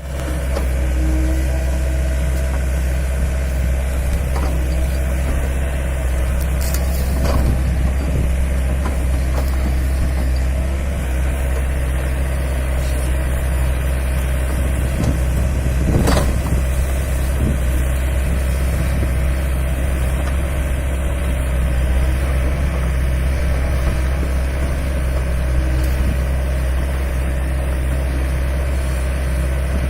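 LiuGong 908E excavator's diesel engine running steadily, with a few short knocks, the loudest about 16 seconds in.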